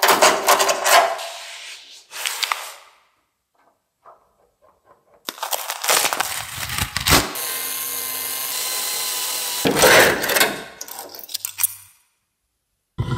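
Workshop hand-tool noise on rusted car body sheet metal: short bursts of scraping and knocking, broken by silent gaps, with a steady noisy stretch of a few seconds in the middle.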